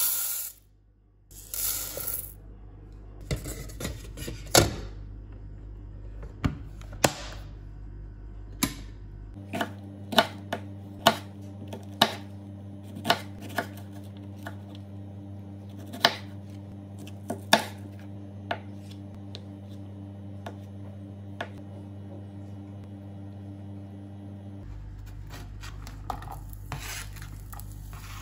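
Dry rice grains pouring into a metal rice cooker pot with a brief rush, then a kitchen knife chopping an onion on a plastic cutting board: single sharp chops, irregular, about one a second. Near the end comes a short rush as the diced onion slides off the board into a frying pan.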